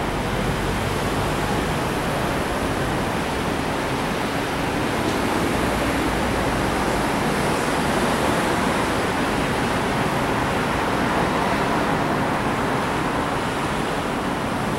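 Steady street traffic noise: cars rolling past slowly, giving an even hiss of tyres and engines with no distinct horn or voice.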